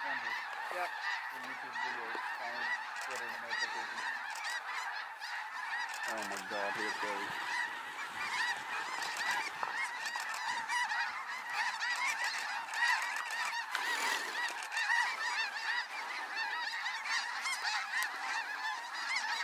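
A large flock of snow geese calling together overhead, a dense, unbroken chorus of many overlapping high yelping honks as the flock circles down over the decoys.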